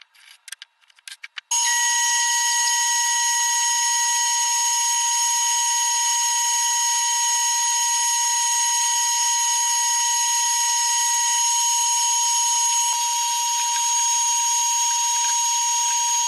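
A few light clicks, then a power tool starts about a second and a half in and runs steadily with a high-pitched whine.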